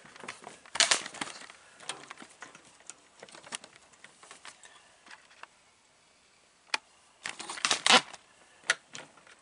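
Handling noise: scattered clicks, taps and rustles as hands work around a 3D-printed plastic pipe clamp on a PVC tube and a coil of cable. There are louder bursts of rustling about a second in and again near the end.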